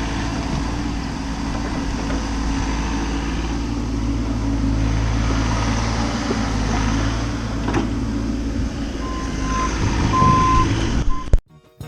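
Bobcat mini-excavator's diesel engine running steadily at work, with one metallic clank about two-thirds through. Near the end a backup alarm gives two long beeps and a short one, then the sound cuts off suddenly.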